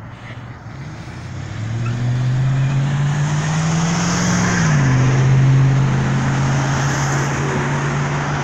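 Car traffic passing close by: a car engine climbs in pitch as it accelerates, drops sharply about halfway through as it shifts up, then holds steady under a loud tyre hiss.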